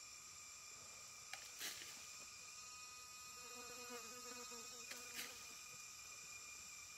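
Insects chirring steadily in the forest: a faint, even drone of several high tones. A few soft clicks and a faint drawn-out pitched sound midway.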